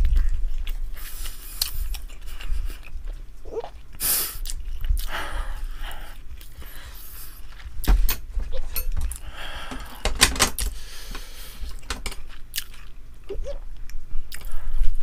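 A person chewing food close to the microphone: irregular wet mouth noises with a few sharp clicks.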